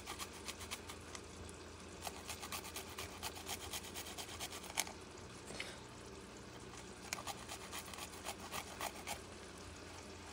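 Garlic clove grated on a small handheld metal grater: quick, light rasping strokes in runs, with a pause a little past halfway.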